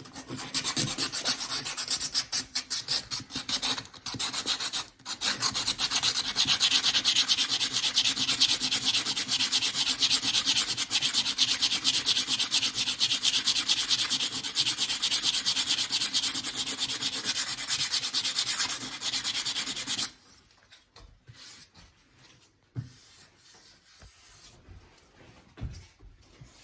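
Sandpaper rubbed rapidly back and forth by hand over a wooden staircase, sanding hardened knot-filler repairs in nail and screw holes flush with the wood. The scrubbing pauses briefly about five seconds in and stops about twenty seconds in, leaving only faint handling sounds.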